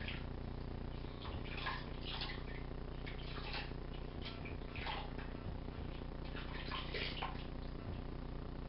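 Water splashing and sloshing in a bathroom sink as hands wash a wet pet rat, in short irregular splashes over a steady low hum.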